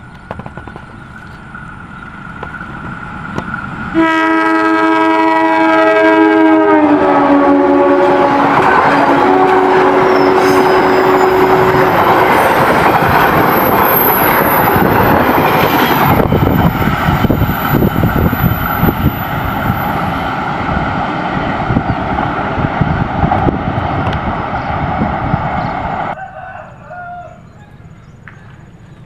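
Diesel-hauled passenger train passing close. About four seconds in, the locomotive sounds its multi-tone horn, which drops in pitch as the engine goes by. Then comes the rumble and clatter of the coaches rolling past, with a thin high wheel squeal on the curve, until the noise cuts off sharply a few seconds before the end.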